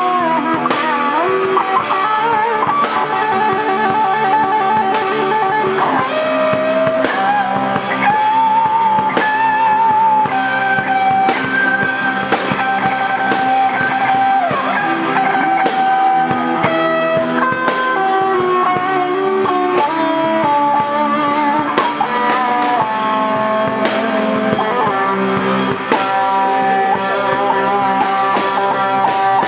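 Instrumental band music: a lead guitar playing a melody of long held notes, with some bends, over rhythm guitars and a drum kit.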